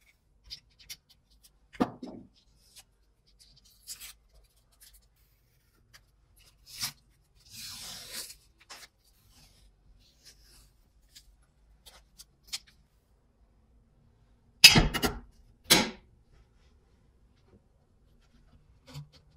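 Small scrapes and taps of hand work on a bench: a utility knife cutting an adhesive covering on a steel plate and the covering being peeled off, with a rasping tear about eight seconds in. Near the end, two sharp clacks about a second apart, the loudest sounds, as a ferrite ring magnet is set down onto the steel plate.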